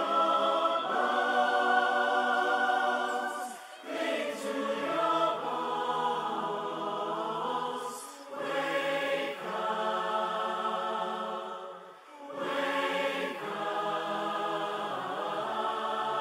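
Choral outro music: a choir singing long held chords in phrases of about four seconds, with brief breaths between them.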